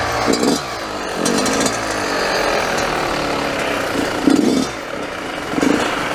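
Yamaha YZ dirt bike engine running at low speed, with two short louder revs about four and five and a half seconds in.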